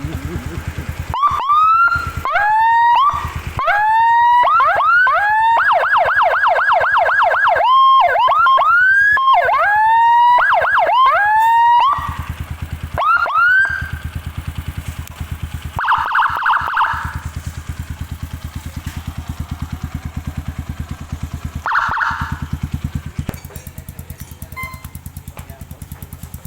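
Whelen electronic siren played through an FS TS300N siren speaker on a Kawasaki KLX motorcycle. For the first dozen seconds it gives a string of short rising whoops about one a second, with a rapid warble for a couple of seconds around six seconds in. It then falls to a few short whoops and two brief bursts of fast warble, over a steady low motorcycle idle.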